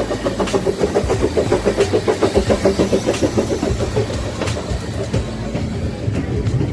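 Narrow-gauge steam train pulling in alongside a station platform, with a fast, regular pulsing, loudest around the middle, and a few sharp clicks.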